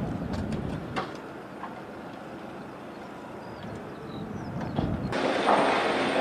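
Low steady rumble of distant machinery with a few light clicks and knocks, the sharpest about a second in. About five seconds in it cuts abruptly to a louder, hissing background noise.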